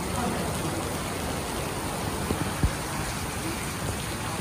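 Steady rain falling, an even hiss, with two short knocks a little past the middle.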